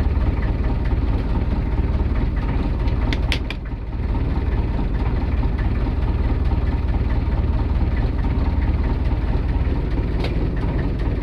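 A single boat engine idling with a steady, low rumble that sounds like a bus, with a brief dip in level just before four seconds in.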